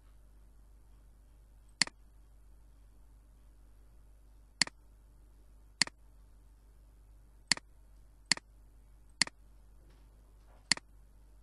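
Computer mouse button clicking: seven single, sharp clicks at uneven intervals over a faint steady hum.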